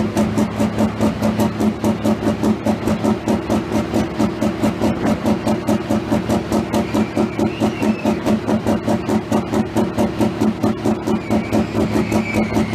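International Harvester 1066 pulling tractor's engine idling with a steady, heavy lope of about four even pulses a second.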